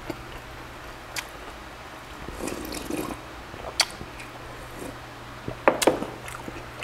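Close-miked eating sounds: broth sipped and slurped from a glass bowl, with a few sharp clicks. The loudest, a couple of knocks near the end, come as the glass bowl is set down on the wooden board.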